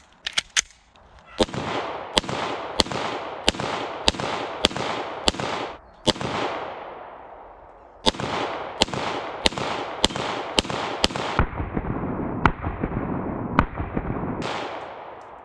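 Ruger-57 pistol firing 5.7x28mm 40-grain rounds in quick single shots, well over a dozen, with a short break in the middle. The string ends in a stovepipe jam: a spent case caught upright in the ejection port on the last round.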